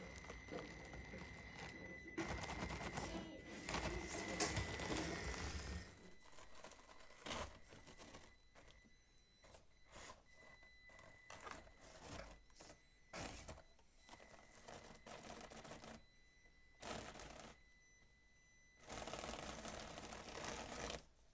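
Traxxas TRX-4M mini RC crawler climbing rock: a thin, steady whine from its small electric motor and gears, louder in the first few seconds and coming and going after, with irregular clicks, knocks and scrapes of its tyres and body on the rock.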